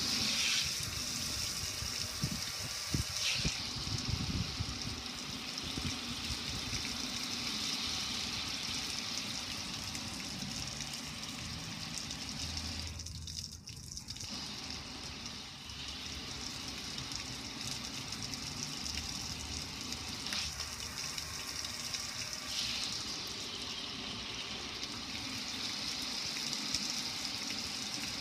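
Water pouring over a gas grill's lid and streaming down its front panel, splashing onto concrete in a steady gush that briefly drops off about halfway through.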